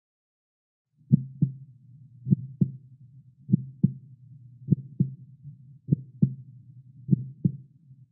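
Heartbeat sound effect: six slow double thumps, about one pair every 1.2 seconds over a low hum, starting about a second in.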